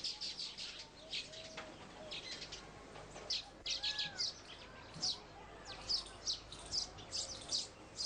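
Baya weavers chattering in a colony: many short, high chirps overlapping in an irregular stream, with a few faint lower whistled notes.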